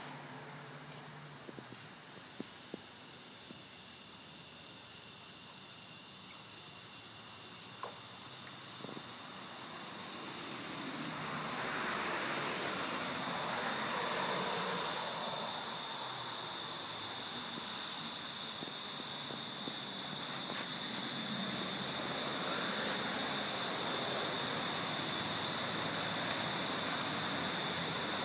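Insects trilling steadily in high continuous tones, with short high chirps repeating about once a second in the first half. A soft rushing noise swells around the middle and again in the latter half.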